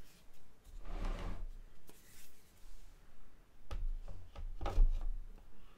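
Statue parts being handled and fitted together: soft rubbing and scraping with a few light knocks as a torso is set onto the statue's legs, the loudest knock near the end.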